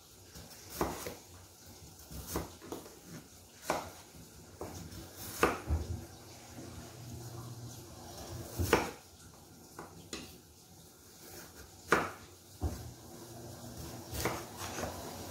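A kitchen knife slicing through a peeled potato and knocking on a wooden cutting board, in irregular single strokes roughly one every second or two as the potato is cut into rounds.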